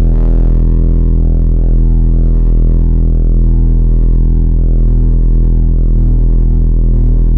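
A loud, very deep bass drone sound effect: one steady low tone with a stack of overtones, with a throbbing in the low end that comes faster toward the end.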